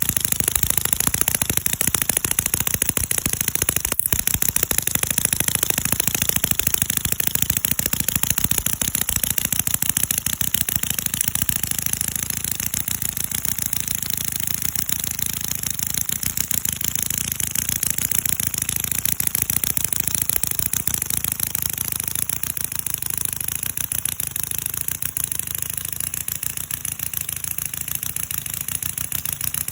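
CISON FG-VT157 miniature four-stroke V-twin model engine running steadily, a fast, even stream of firing pulses with a whirring hiss on top, easing slightly in level about halfway through.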